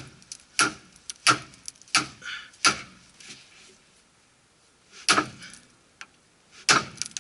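Sharp metallic clicks and knocks from hand tools working on the steering linkage: four in a steady rhythm, then two more after a pause.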